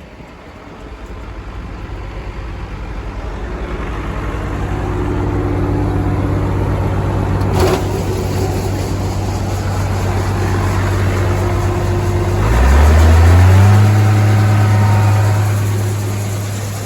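Farm machinery engine running and getting louder as it comes closer, with a single sharp knock partway through. About twelve seconds in it revs up and holds a higher pitch, then fades near the end.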